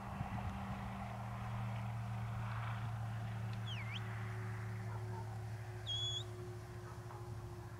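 Short high whistles over a steady low hum: one sweeps down and back up about halfway through, and a short flat whistle comes near the end.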